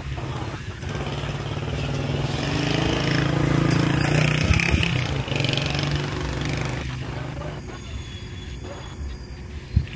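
A motor vehicle engine running with a steady low hum, growing louder to a peak about halfway through and then fading away, with a sharp knock near the end.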